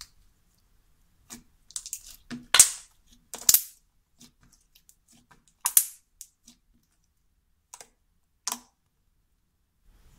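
Pink slime with foam beads being squished and poked by hand, giving irregular sharp clicks and pops, the loudest about two and a half, three and a half and six seconds in.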